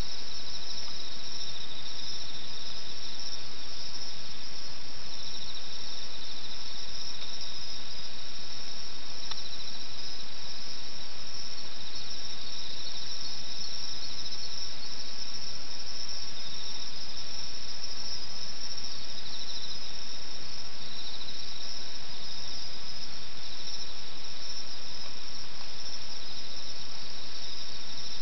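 Chorus of singing insects: a dense, continuous high-pitched trill, with a slightly lower pulsing trill coming and going in stretches over it.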